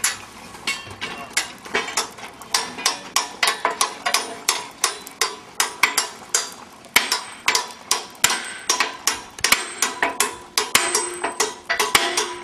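Rapid, repeated sledgehammer blows on the steel firebox shell of a Sentinel steam waggon boiler, about three strikes a second, each with a metallic ring.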